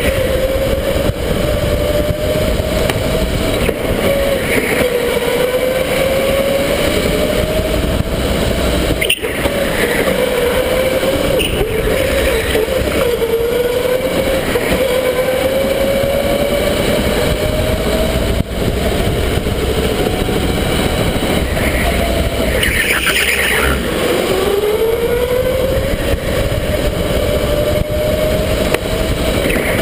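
Electric go-kart motor whining under way. Its pitch climbs slowly as the kart gathers speed and drops each time it slows, most sharply about three-quarters of the way through, before climbing again. A steady rumble of wind and vibration on the kart-mounted microphone runs underneath.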